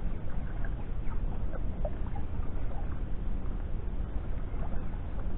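Wind buffeting the microphone as a steady low rumble that rises and falls. Faint short chirps are scattered through it.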